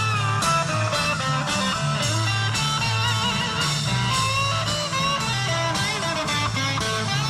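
Live rock band playing an instrumental passage: strummed guitars over a stepping bass line and drums, with a lead line carrying the melody above.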